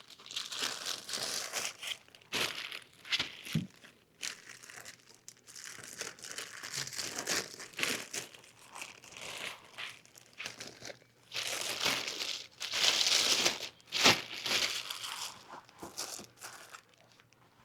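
Plastic packaging crinkling and rustling in irregular bursts as new auto parts are unwrapped and handled, loudest about twelve to fourteen seconds in.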